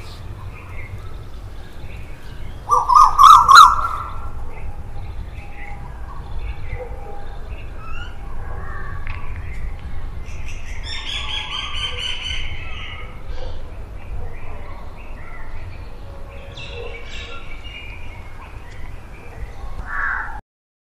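Outdoor village ambience of birds chirping and calling, with a quick run of repeated calls about eleven seconds in, over a steady low background hum. About three seconds in, a brief loud sound stands out above the birds. The sound cuts off just before the end.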